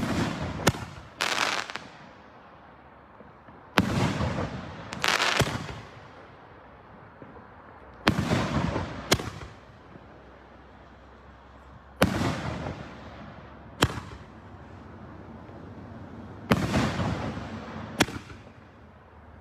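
Fireworks going off: about a dozen sharp bangs, mostly in twos or threes about a second apart, every four seconds or so, each followed by a hissing tail that dies away over about a second.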